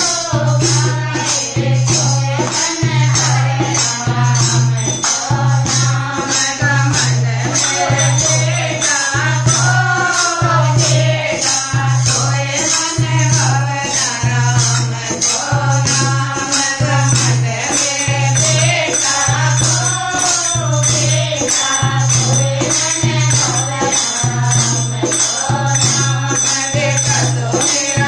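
A group of women singing a Hindi devotional bhajan together, with a dholak drum keeping a steady beat and jingling hand percussion striking rapidly and evenly.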